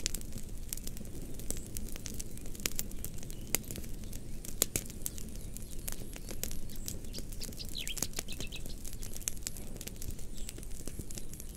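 Fire crackling, with irregular sharp pops and snaps over a low steady rumble of flames. About eight seconds in, a short falling chirp and a few quick chirps come through.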